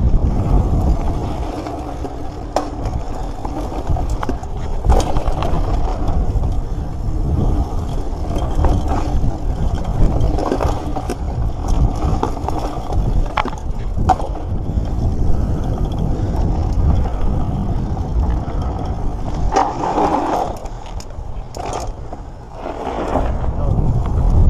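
Mountain bike ridden fast down a dirt trail: tyres rolling and crunching over packed dirt and gravel, with wind rumbling on the bike-mounted microphone. Frequent sharp knocks and rattles from the bike over bumps.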